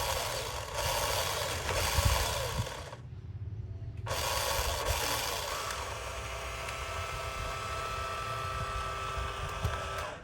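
Huina RC excavator at work: a gritty scraping with low knocks for about three seconds, then the whine of its small electric motors, steady for the rest.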